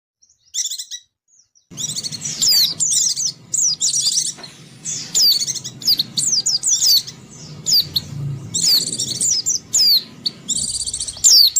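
Small spectacled bird, a white-eye, singing a loud, rapid twittering song of quick high chirps that slide downward, delivered in fast runs with brief pauses between phrases.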